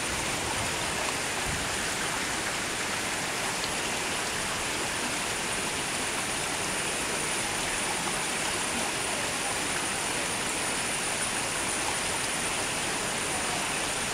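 Steady rush of running water, even and unbroken, with a thin high steady tone over it.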